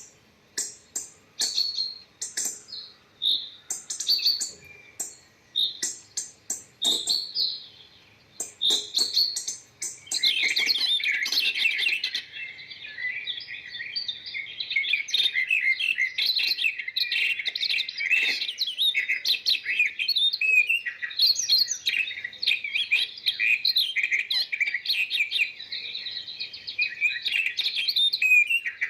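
Small birds chirping: short, separate high chirps with gaps for the first ten seconds or so, then a dense, continuous twittering, as of several birds calling at once.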